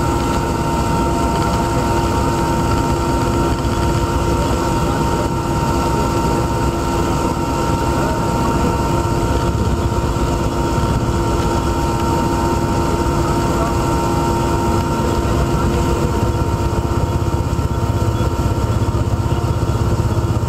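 Aircraft engine noise heard inside the cabin: a steady, unbroken drone with a few constant whining tones over a low rumble and hiss.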